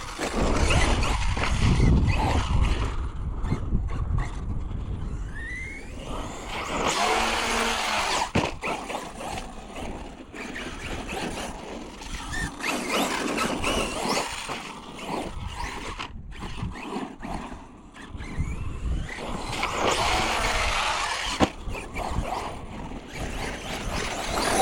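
Arrma Fireteam RC truck's brushless electric motor whining, rising and falling in pitch as it speeds up and slows, with its tyres running over wet, muddy ground.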